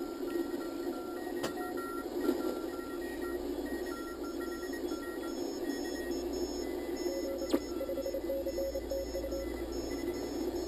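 Audio from a Rockmite 40 homebrew CW transceiver: Morse code tones keyed on and off in dots and dashes over steady receiver hiss, with a couple of sharp static clicks.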